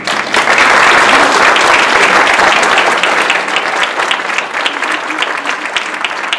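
A theatre audience applauding, loudest in the first few seconds and then thinning out into scattered claps near the end.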